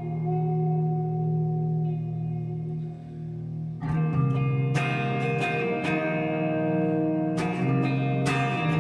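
Electric guitar played through an amplifier: a held low chord rings and slowly fades, then about four seconds in, sharp picked strokes come in again and again over ringing low notes.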